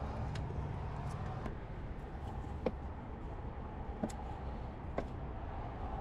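A few faint, short clicks and taps of hands fitting a wire-piercing test probe onto a wiring-harness wire, over a steady low background hum.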